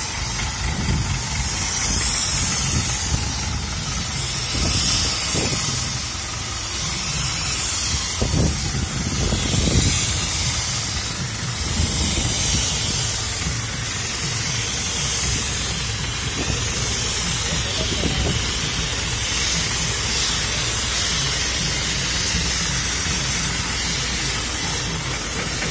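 ACE 12XW pick-and-carry crane's diesel engine running steadily at close range, with a constant hiss over it that swells and fades every couple of seconds.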